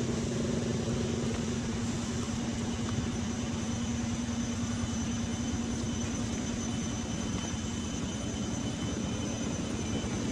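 A steady engine hum with one low, unchanging drone, holding an even level throughout.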